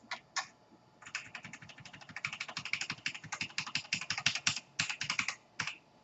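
Typing on a computer keyboard: two separate clicks near the start, then a fast run of keystrokes lasting about four and a half seconds.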